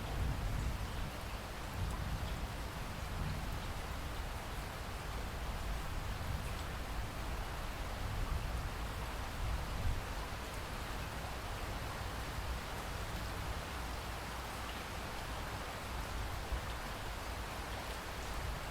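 Steady rain falling, with a constant hiss and a low, uneven rumble underneath.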